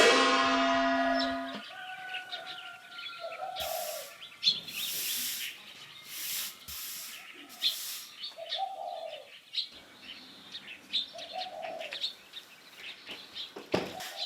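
Small birds chirping, with a dove cooing three times. It opens on a single loud struck ringing tone that fades over about a second and a half.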